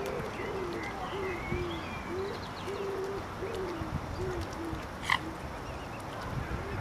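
A run of soft, low, hooting bird calls, about two a second, some bending up and down in pitch, with one sharp high chirp about five seconds in.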